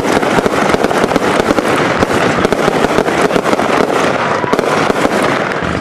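Soaring Eagle 'Sea of Tranquility' firework firing: a dense, rapid, unbroken string of pops and bursts.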